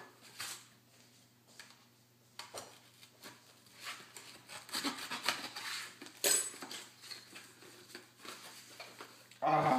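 Cardboard box and its packing rustling and scraping as hands rummage inside for the next spice jar, with scattered light knocks and one sharper crackle about six seconds in.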